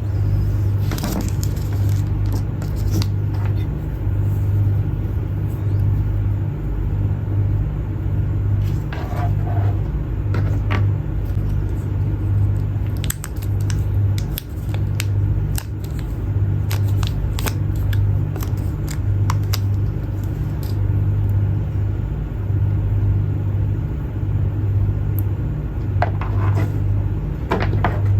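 Packaging being handled during an unboxing: scattered light clicks and brief rustles, several grouped about nine to eleven seconds in and again near the end, over a steady low hum.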